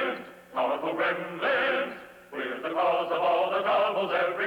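Male voices singing together in chorus with instrumental backing: a sung cartoon song, in phrases broken by short pauses.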